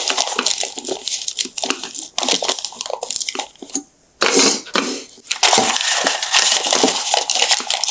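Parchment paper crinkling and rustling as it is pressed and smoothed into a small cake tin, with a short pause about four seconds in.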